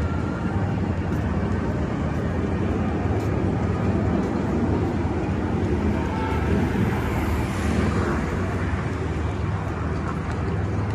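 Busy city street ambience: steady traffic noise with a low rumble, mixed with indistinct voices of people nearby. The noise swells briefly a little past the middle.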